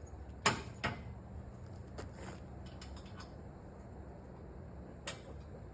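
Sharp metal clicks and knocks from the hitch pins being fitted to secure the quick hitch to the three-point hitch's lower arms. The loudest knock comes about half a second in, with lighter ones just after, around two seconds in and near the end, over a steady low hum.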